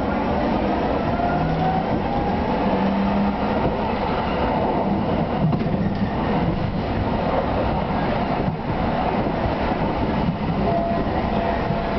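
A light rail car running on its track, heard from inside the driver's cab: a steady rumble of wheels on rail with an electric traction motor whine that rises in pitch over the first couple of seconds as the car gathers speed.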